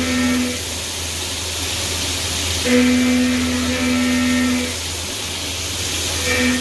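CNC milling machine cutting pockets in soft vise jaws: a steady machine hum and hiss, with the end mill's pitched cutting tone sounding in stretches as it engages, briefly at the start, for about two seconds from around three seconds in, and again near the end.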